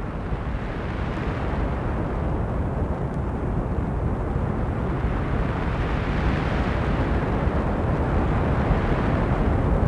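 Steady, low, rushing rumble of wind noise, slowly growing louder.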